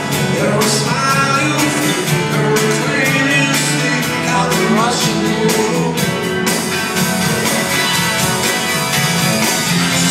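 Rock band playing live, with guitar, bass and drums keeping a steady beat, heard from the audience in a large theatre.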